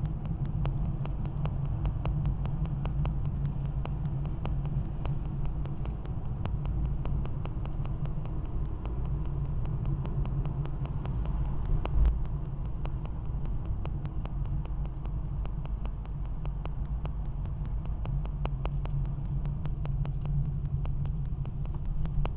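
Steady low rumble of a car's engine and tyres on the road, heard from inside the cabin while driving, with one brief thump about halfway through.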